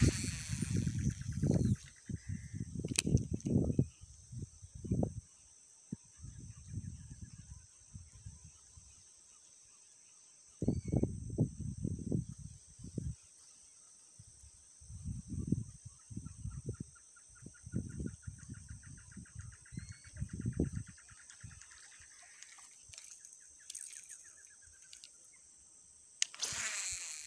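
Open-air creekside ambience: a steady high insect buzz, with gusts of wind rumbling on the microphone that come and go. Twice a bird gives a long rapid trill, the second lasting several seconds, and a few short chirps sound in between.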